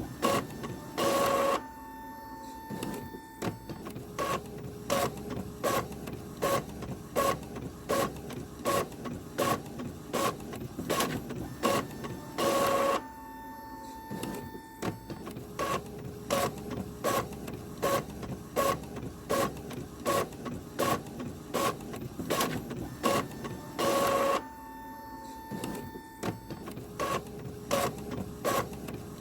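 Printer running a print job, feeding paper: regular sharp mechanical clicks about twice a second over a steady whir. About every 11 seconds, three times, a louder half-second burst of motor noise is followed by a short held tone.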